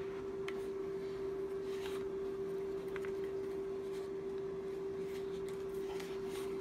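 A steady hum holding one pitch, with a few faint clicks of hard plastic parts being handled.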